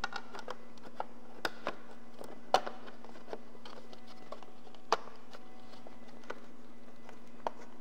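Scattered light clicks and taps of a plastic headlight mask being handled and pressed into place on a motorcycle's front, the two loudest about two and a half and five seconds in, over a steady low hum.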